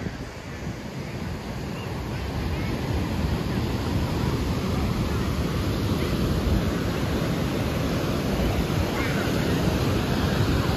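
Ocean surf breaking on a sandy beach: a steady wash of waves, growing louder over the first few seconds, with wind buffeting the microphone.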